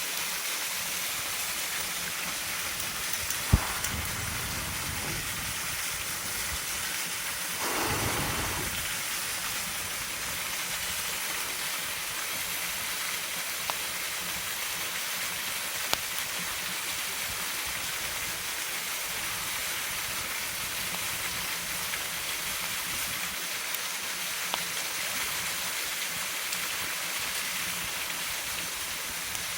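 Waterfall rushing steadily, an even hiss of falling water. A single sharp snap about three and a half seconds in, a brief fuller swell around eight seconds, and a few faint ticks later on.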